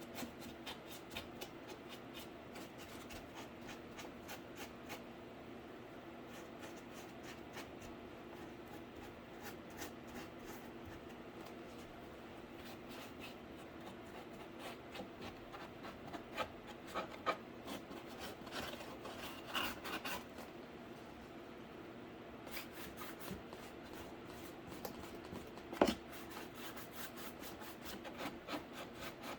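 Paint being worked onto a cardboard case with many short, scratchy rubbing strokes, busier in places, and one sharp knock near the end.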